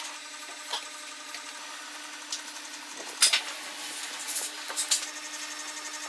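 Notched wooden sticks clicking, knocking and rubbing together as they are fitted by hand into a small log-cabin frame: several sharp wooden clicks, the loudest about three seconds in, over a steady low hum.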